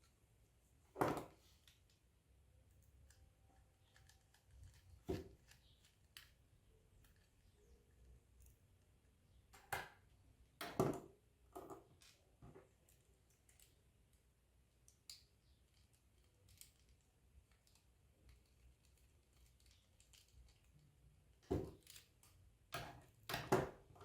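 Scattered small clicks and taps of tools and parts being handled while a laptop's hard drive is unscrewed and removed, a few sharper knocks standing out and several coming close together near the end.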